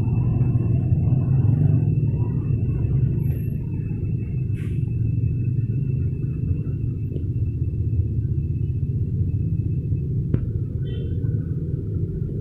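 Street traffic: motorcycles and cars driving past close by, heard as a steady low engine rumble that is a little louder in the first couple of seconds.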